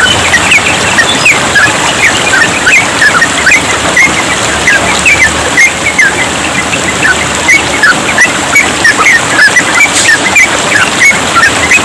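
Yellow-vented bulbuls singing a rapid, unbroken string of short chirps over the steady sound of trickling water.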